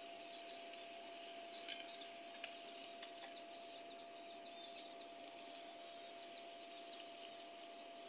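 Seed-cleaning machine running: its electric fan hums with a steady tone under a faint hiss as seed and millet husks trickle down through the baffled box, with a few sharp ticks near two and three seconds in.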